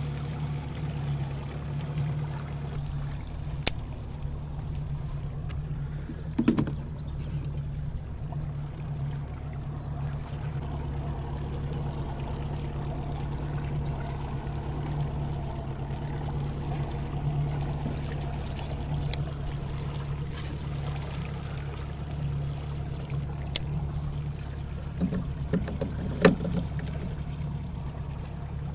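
60 hp outboard motor running at low trolling speed, a steady low hum. A few sharp knocks and clicks of handled gear in the boat, with a cluster near the end, the loudest of them.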